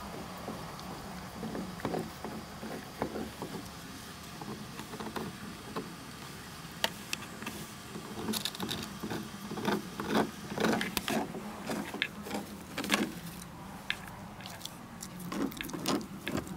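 Pembroke Welsh Corgi puppy gnawing and scrabbling with teeth and paws, making irregular clicks and scrapes that come thickest in the middle, over a faint steady low hum.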